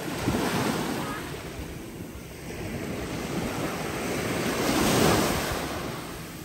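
Small Gulf waves breaking and washing up the sand in two swells, the second and louder one about five seconds in, with wind buffeting the microphone.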